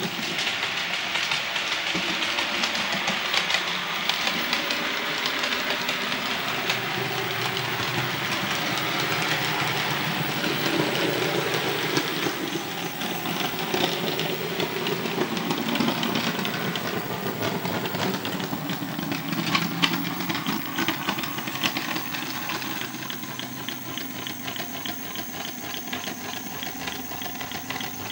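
Model G5 0-4-4 tank locomotive running along the layout track hauling coaches: a steady running noise with hiss and fine clicking of the wheels on the rails, easing a little in the last few seconds.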